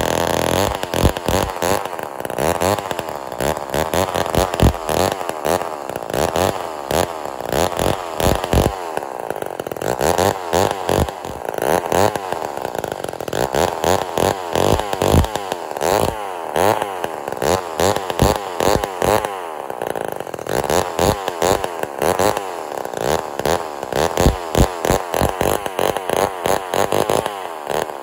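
Vintage Lombard Super Lightning 68cc two-stroke chainsaw running out of the cut, loud through its empty-chamber muffler, revved up and let fall back over and over as it warms up after starting.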